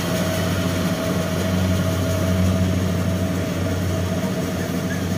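Kubota combine harvester's diesel engine running at a steady low hum as the machine cuts and threshes rice.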